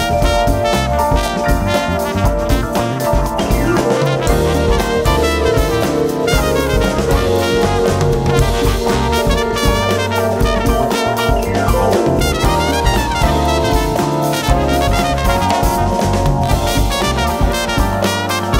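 Upbeat instrumental background music with a steady drum beat.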